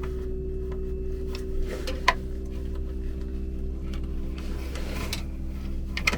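Sharp clicks and taps of small wiring parts being handled and fitted, the loudest about two seconds in and another near the end, with a short rustle between, over a steady mechanical hum.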